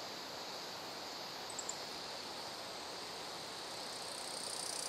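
Faint, steady high-pitched chorus of insects over a soft background hiss; near the end a higher-pitched layer joins and it grows slightly louder.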